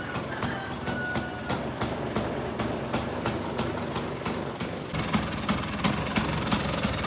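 1974 Vespa Super 150's single-cylinder two-stroke engine idling, with a regular ticking about four times a second. About five seconds in it gets a little louder.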